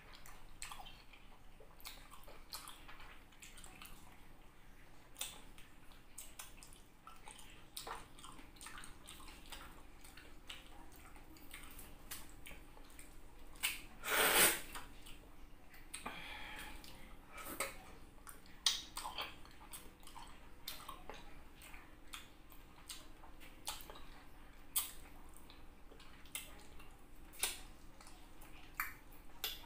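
Close mouth sounds of eating rambutan: wet chewing, smacking and sucking with many irregular small clicks. There is one louder noisy burst about halfway through, as a fruit is opened at the mouth.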